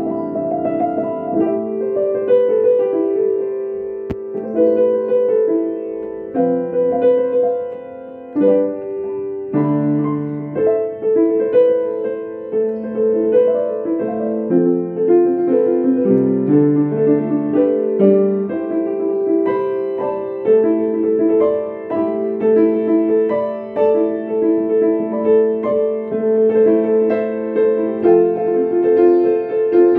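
Ambient keyboard music played live: overlapping held notes and chords in the low and middle range, moving slowly from one to the next.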